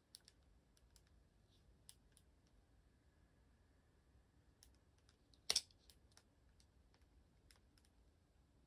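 Faint, scattered small clicks and taps of a plastic anime figure's parts being handled as its head is fitted onto the body, with one sharper click about halfway through.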